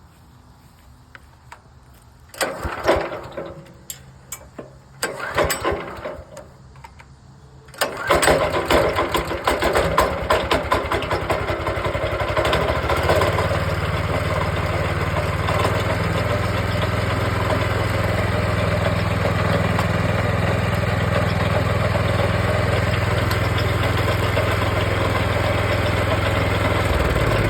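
Kohler 14 hp Command Pro single-cylinder engine on a DK2 stump grinder being started: two short start attempts, then it catches about eight seconds in. It settles into a steady run, and the sound grows deeper and fuller a few seconds later. The engine runs as it should.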